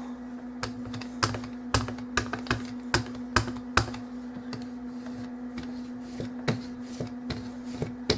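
Hand ink brayer being lifted and rolled over and over across glossy photo paper, with sharp irregular clicks and taps about one to two a second as the roller comes down and lifts off. A steady low hum runs underneath.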